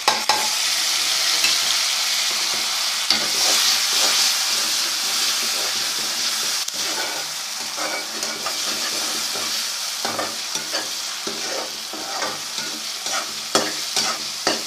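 Tomatoes going into hot ghee with browned onions and ginger-garlic paste: a loud sizzle starts at once and eases off after a few seconds. From about the middle on, a spoon stirs and scrapes the pan with irregular knocks that come faster near the end.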